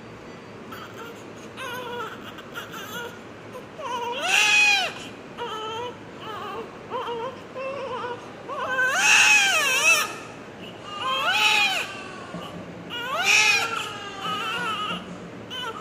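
Newborn baby crying: soft whimpers at first, then four loud wails, each rising and falling in pitch, with quieter sobs between them.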